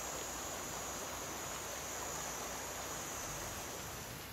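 River in flood, its muddy water rushing past in a steady hiss. A thin, steady high tone runs over it and fades near the end.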